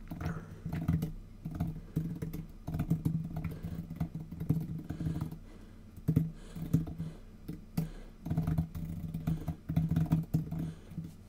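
Typing on a computer keyboard in quick runs of keystrokes, with brief pauses between the runs.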